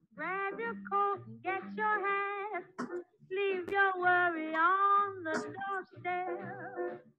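A woman singing a melody, gliding between held notes with vibrato toward the end, over a lower instrumental accompaniment.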